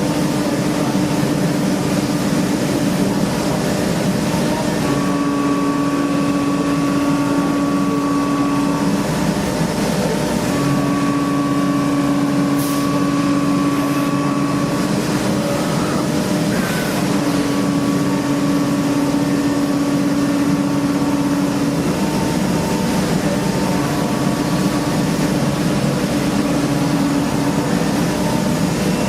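CNC machining centre running while it machines an engine block: a steady mechanical hum with a held tone that starts and stops in stretches of a few seconds, about four times.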